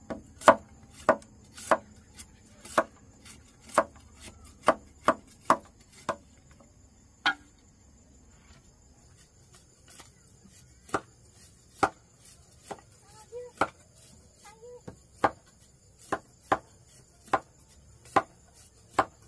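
Chopping with a blade: single sharp strokes, about two a second at first, then a pause of a few seconds, then slower, more spaced strokes.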